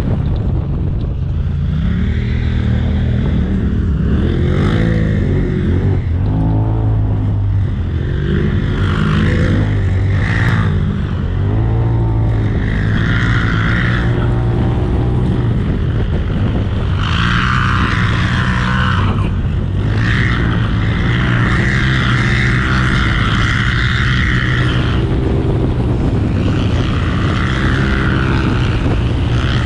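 Polaris RZR side-by-side's turbocharged engine running under load, its revs climbing and dropping again and again as it is driven through sand, with a rushing hiss that comes and goes.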